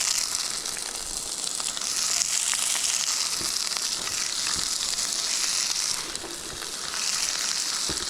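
Sliced peppers frying in hot avocado oil: a steady sizzle with small crackles, easing slightly about six seconds in.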